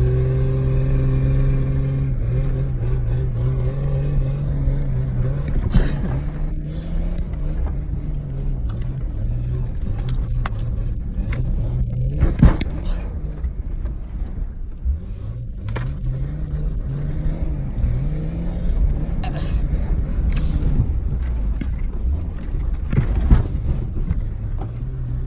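Jeep engine running and revving, its pitch rising and falling repeatedly, with a sharp knock about halfway through and another near the end.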